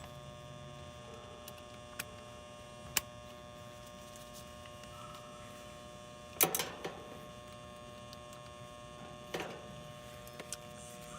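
Steady electrical hum from an air-conditioner's energised contactor buzzing, with a few sharp metal clicks and one louder knock about six and a half seconds in as a capacitor bracket is fitted in the unit.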